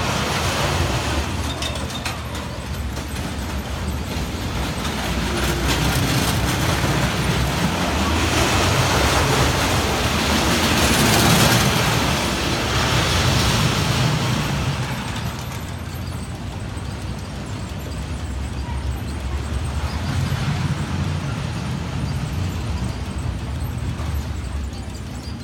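Roller coaster train rumbling along its track, growing louder to a peak about halfway through, then fading, with a smaller swell again near the end.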